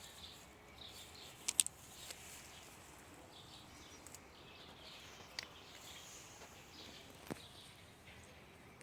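Quiet outdoor ambience with faint bird chirps scattered throughout and a few short sharp clicks or taps.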